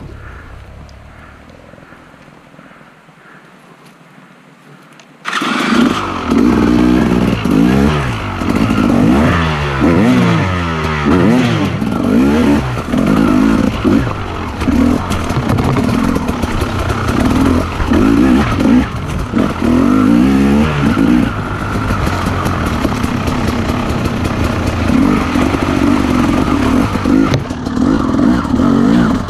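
Motorcycle engine, starting suddenly about five seconds in, then running under load with its pitch rising and falling repeatedly as the throttle is worked.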